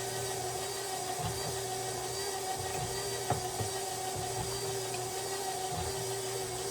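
Electric stand mixer motor running steadily with an even hum, and a single light tap about three seconds in.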